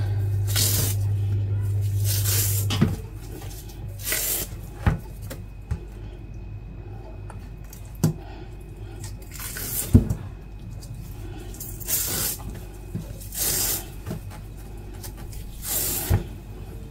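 Wet handling noises of spiny eels (baim fish) being skinned by hand: a string of short rasping swishes as the skin is pulled away, with a few sharp clicks and knocks in between. A low steady hum cuts off about three seconds in.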